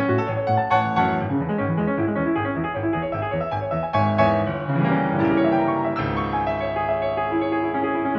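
Background piano music: a steady stream of notes and chords.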